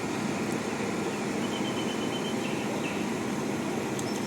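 Heavy construction machinery running: a steady low rumble with no change in pitch or level.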